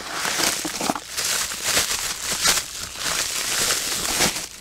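Packaging crinkling and rustling in the hands as a small boxed glass skull bottle is opened and unwrapped, a dense run of crackles that stops suddenly near the end.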